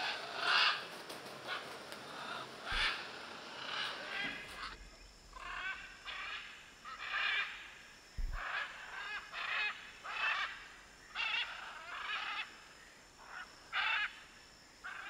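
Scarlet macaws squawking: a run of short, harsh, grating calls, about one a second.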